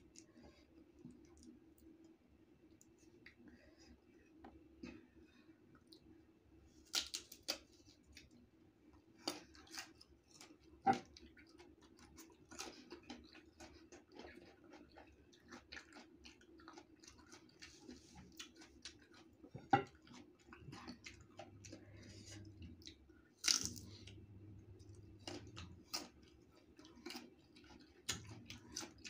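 Close-miked chewing and crunching of crisp green mango slices, with many small wet mouth clicks and a few louder bites, over a faint steady hum.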